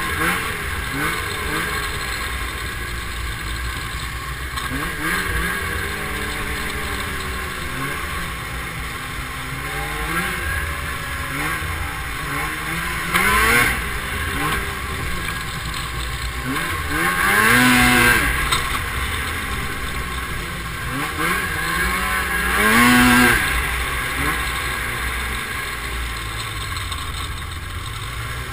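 Snowmobile engine running under load on a trail, its pitch climbing and falling every few seconds as the throttle is opened and eased off. The strongest surges of acceleration come about halfway through and again a few seconds later.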